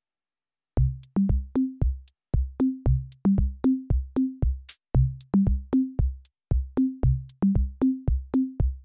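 Background music: an electronic drum-machine beat of pitched drum hits stepping between a few low notes, about three hits a second, starting about a second in.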